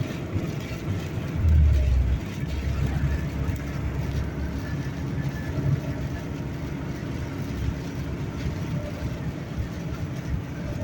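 Steady road and engine rumble inside a moving car, with a deep low boom about one and a half seconds in that dies away over the next couple of seconds.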